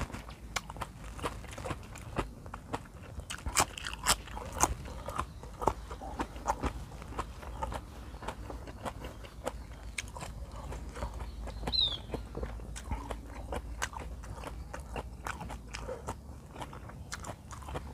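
A man chewing a mouthful close to the microphone: a run of wet smacks and clicks from the mouth, busiest a few seconds in. A short high chirp sounds once, about twelve seconds in.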